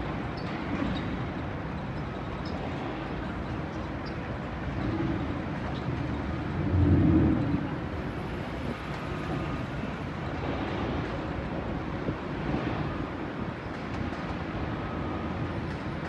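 Steady low rumble of wind over a phone's microphone hanging from a crane hook high in the air, over the distant hum of city traffic below. One stronger gust about seven seconds in.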